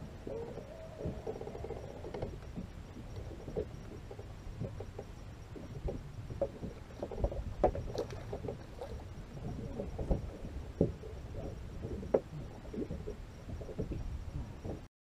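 Water lapping and sloshing against a small boat's hull, with irregular knocks and light splashes as a hand reaches into the water over the side to free a fish snagged in the reef. The sound cuts off abruptly near the end.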